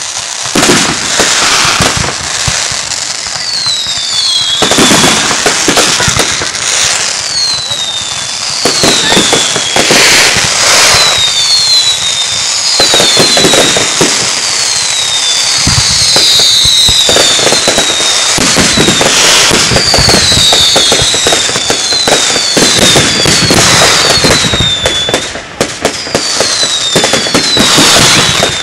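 Fireworks display: a dense run of aerial shell bursts and crackling, with many short falling whistles over it.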